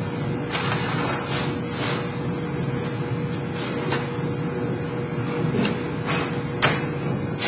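Galvanized sheet-metal duct pieces handled and slid on a plywood workbench: a series of short scrapes and rattles, with one sharp click a little before the end. A steady hum runs underneath.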